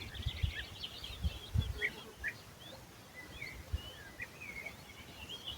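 Several small birds chirping and twittering, with many short notes and trills overlapping. Irregular low thumps sound underneath, the loudest ones in the first two seconds.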